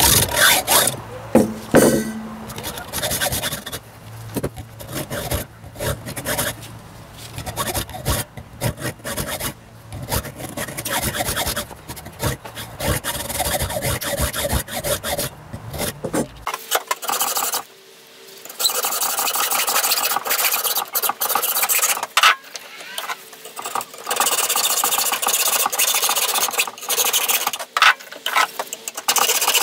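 Saw cutting through the sheet-steel casing of a used fuel filter, with uneven rasping strokes, the blade skipping now and then, and a short pause about two-thirds of the way through.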